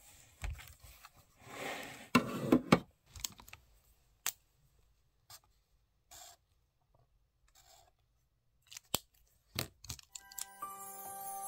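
Paper pages of a spiral-bound notebook being turned and handled, with a rustle about two seconds in and scattered light clicks and taps of pens on the pages and desk. Bell-toned music fades in near the end.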